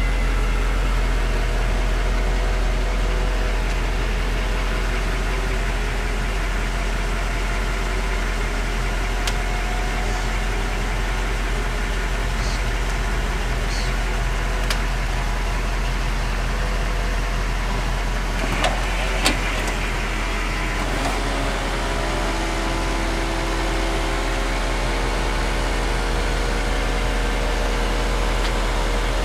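1964 Ford Thunderbird's power convertible-top mechanism cycling over a steady low mechanical hum: motor whine that drifts in pitch, with scattered light clicks and two sharper clicks about two-thirds of the way through.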